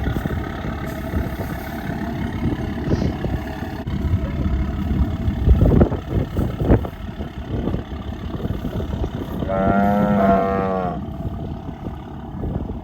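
A cow moos once, long and pitched, about ten seconds in, over the steady low rumble of an idling vehicle engine. There are a few louder knocks near the middle.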